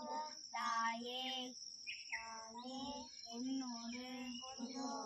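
A single voice chanting a Tamil Shiva mantra in short phrases, each held on a nearly level pitch. A thin, steady high-pitched whine runs underneath.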